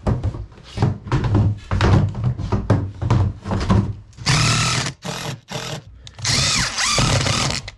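Hollow knocks of plastic storage bins being set down on a plywood deck, then a power drill driving screws through the bins' rims into wooden boards: a long whir, two short bursts, and another long whir whose pitch dips under load.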